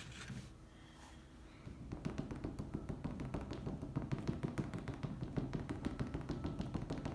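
Fingertips dabbing acrylic paint onto a stretched canvas: a fast run of soft taps, several a second, starting about two seconds in.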